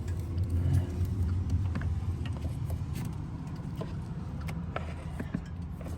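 Plastic hose fittings and a connector being handled and pushed into place, giving scattered clicks and taps over a steady low hum.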